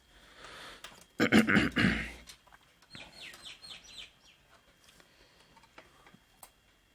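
Birds calling: one loud call just over a second in, then a quick run of five or six falling chirps a couple of seconds later.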